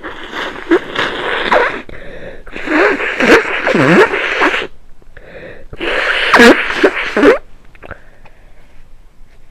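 A person with a head cold blowing their nose three times. Each blow is a rush of air lasting one and a half to two seconds, with squeaky honking tones through it, and the blows come about a second apart.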